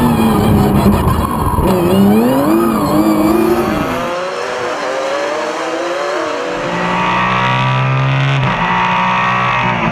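Touring race car engine running hard, its pitch rising and falling with revs and gear changes, then holding a steadier note over the last few seconds.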